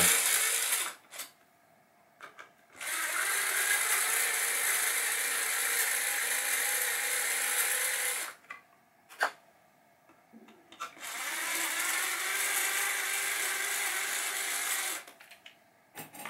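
Cordless electric screwdriver running in two steady spells of about five and four seconds, backing out the screws of pop bumper covers, with a few clicks in between. Its battery is one the owner calls dead.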